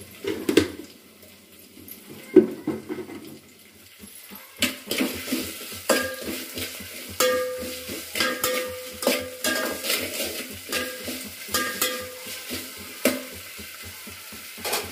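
Spatula stirring onions, ginger-garlic paste and salt frying in oil in a metal cooking pot (handi), with a faint sizzle. Two knocks in the first few seconds, then from about four and a half seconds in the spatula clinks and scrapes against the pot again and again, the pot ringing briefly after some strikes.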